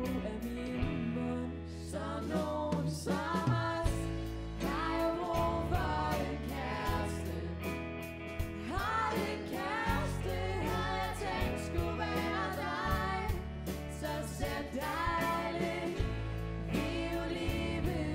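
A band playing a Danish pop song: a sung lead vocal over keyboard, guitars, bass and a drum kit with cymbals keeping a steady beat.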